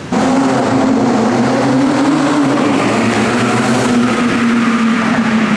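Car engine running loud as the car drives through a parking garage: a steady drone whose pitch sags slightly near the end.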